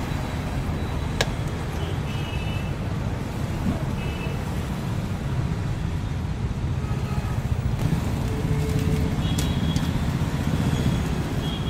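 Steady low rumble of road traffic, with a single sharp click about a second in.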